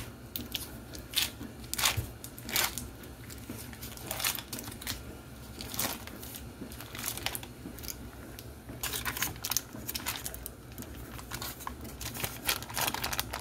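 Foil wrapper of a cream cheese block being peeled open and crinkled by hand, an irregular run of crackles and crinkles.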